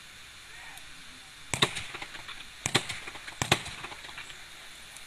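Ragged volleys of rifle shots fired in salute: three clusters of sharp cracks about a second apart, each made of several shots that are not quite together.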